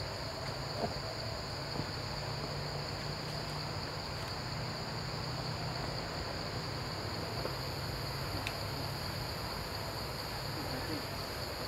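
Steady chorus of insects buzzing, one unbroken high-pitched band, with a second, higher band joining about seven seconds in, over a steady low hum.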